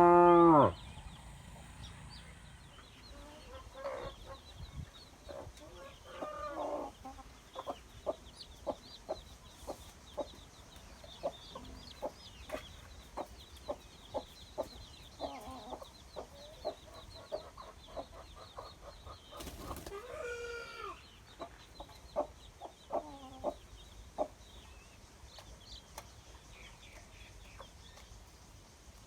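Chickens clucking: many short clucks about a second apart, with a few longer calls mixed in and faint high chirps. A cow's moo breaks off at the very start.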